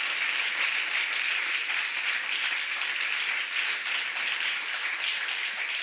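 Audience applauding, the clapping of many hands keeping up at a steady level.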